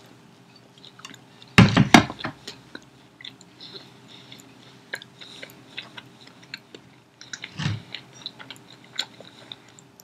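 Biting into a fried cheese crisp with a loud crunch about a second and a half in, then chewing it with many small crunching clicks, and a second, duller crunch about three-quarters of the way through.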